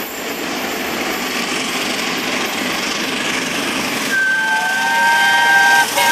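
A1 Pacific steam locomotive Tornado working hard up a steep bank, its exhaust a steady rush that grows louder as it approaches. About four seconds in, its whistle sounds for about a second and a half.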